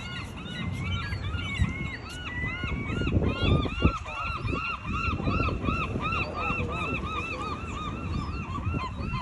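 Gulls calling, many birds at once, in quick repeated rising-and-falling cries. From about the middle on, the cries settle into a fast, even series. A steady low rumble runs underneath.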